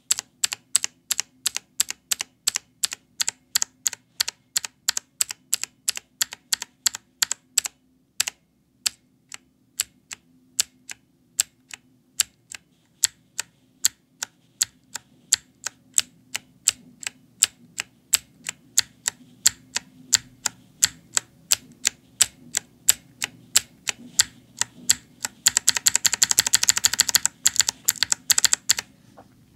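Blue clicky mechanical keyboard switch pressed over and over, each press a sharp click with the spring noise in it. The presses come at about two to three a second for the first eight seconds, turn softer and less even after that, and end in a fast flurry of presses near the end.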